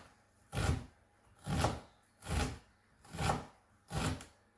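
Chef's knife chopping an onion on a chopping board: five evenly spaced chops, a little more than one a second.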